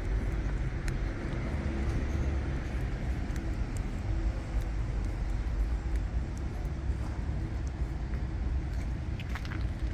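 City street ambience: a steady rumble of road traffic, with a few faint clicks near the end.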